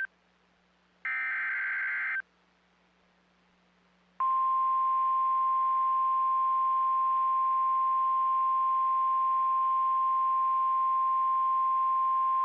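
NOAA Weather Radio Emergency Alert System activation announcing a severe thunderstorm warning. About a second in comes the last burst of the SAME digital header, a buzzy warble of data tones lasting about a second. After two seconds of quiet, the steady 1050 Hz warning alarm tone starts and holds as one unbroken high tone.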